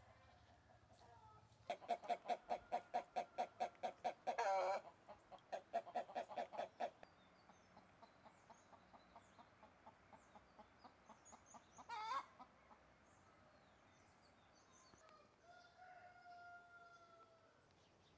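Domestic hen cackling: a rapid string of clucks, about four a second, broken by a loud squawk, with a second squawk several seconds later. Near the end a rooster crows faintly.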